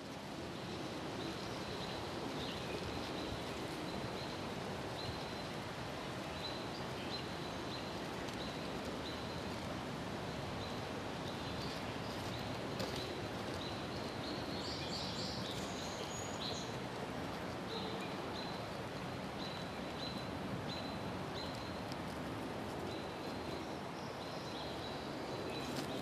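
Steady outdoor background noise with faint, short high-pitched chirps recurring every second or so, and a busier run of chirps about halfway through.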